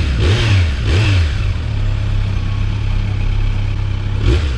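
Kawasaki Z900's inline-four engine running steadily, blipped up and back down briefly a few times: twice in the first second or so and once near the end.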